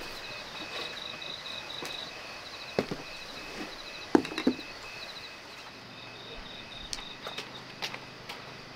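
Insects chirping in a fast pulsing rhythm, with a couple of sharp knocks of crockery set down on a woven tray about three and four seconds in.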